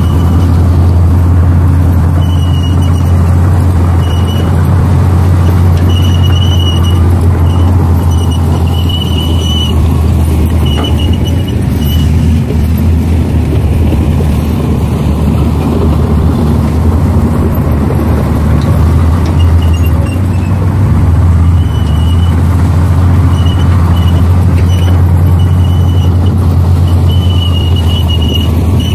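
Heavy diesel machinery running steadily with a deep drone, while short high-pitched squeals come and go repeatedly.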